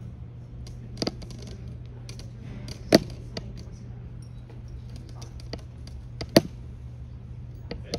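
A few scattered sharp knocks and clicks, the two loudest about three and six seconds in, over a steady low hum.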